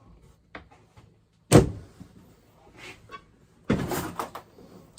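Kitchen cupboard doors and drawers being opened and shut: a sharp knock about a second and a half in, then a short clatter with several clicks near four seconds.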